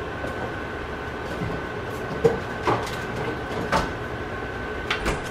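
Steady kitchen hum with a faint high whine, broken by a few light knocks and clicks of things being handled and put away.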